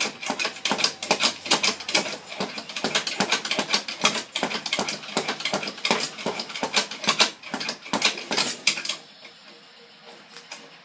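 Fast, rhythmic knocking of fists on a small hanging punching bag clipped to a rafter, a rapid steady patter of hits that stops about nine seconds in.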